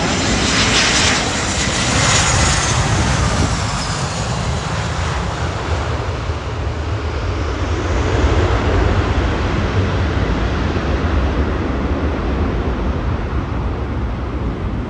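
Airbus airliner's jet engines and rolling rumble heard from inside the cabin during landing: a high engine whine falls in pitch over the first few seconds, then a steady low rumble takes over.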